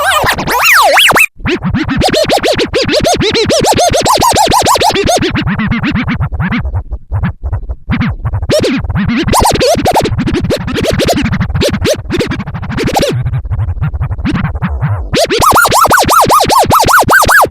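Turntable record scratching: the record is pushed back and forth in quick strokes, giving rapid rising and falling pitch sweeps. There is a brief cut about a second in, and the strokes turn higher and faster near the end.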